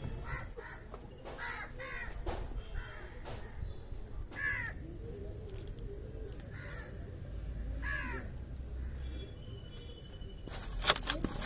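Crows cawing in the background, about ten short harsh caws at uneven intervals. A brief sharp knock near the end is the loudest sound.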